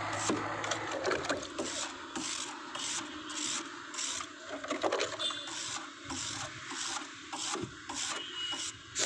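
Stiff brush scrubbing the finned coil of a window air conditioner during a chemical clean, in rhythmic scratchy strokes a little over two a second.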